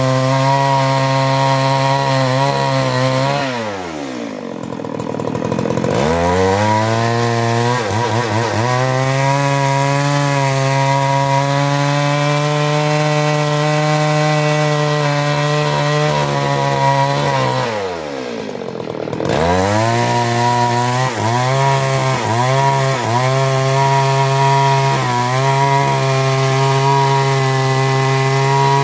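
Stihl MS 382 two-stroke chainsaw running at high revs as its chain cuts through a log. Twice the engine speed drops sharply and climbs back, and near the end it dips briefly several times as the cut goes through.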